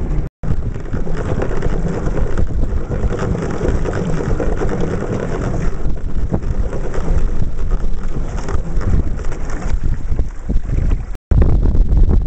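Wind buffeting the microphone over choppy water, a loud gusty rumble with water splashing and patter mixed in. The sound cuts out completely twice, briefly: just after the start and about a second before the end.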